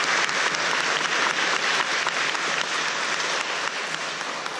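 Audience applauding, the clapping starting to die away in the last second or so.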